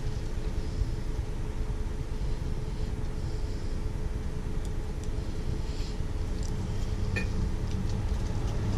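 Steady low background rumble with a faint steady hum, and a couple of light ticks about seven seconds in.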